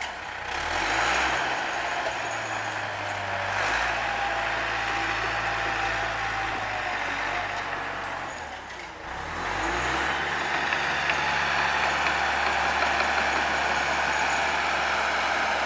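Diesel engine of a bulldozer at work, running steadily. It eases off a little before the 9-second mark, then revs up about 10 seconds in and holds at the higher speed.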